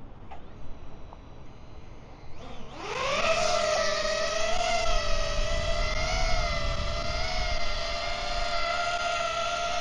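Quadcopter FPV drone's motors spinning up about three seconds in, rising to a steady high propeller whine that wavers slightly, with wind rumble on the microphone.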